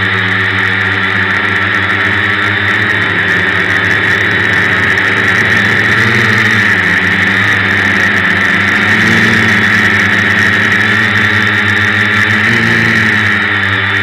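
Multirotor drone's electric motors and propellers running, heard close up from the onboard camera as a steady buzzing whine. The pitch shifts up and down a few times as the motor speeds change in flight.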